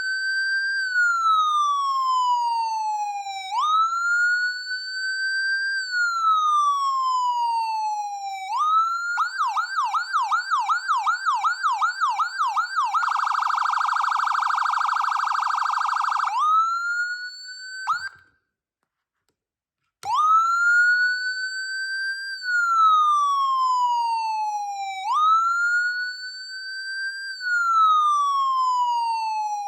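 Whelen Epsilon electronic siren sounding its tones. It begins with a slow wail, each rise and fall taking about five seconds. About nine seconds in it switches to a yelp of about three quick sweeps a second, then to a very rapid warble. It briefly returns to the wail and cuts off for about two seconds. The slow wail then starts again.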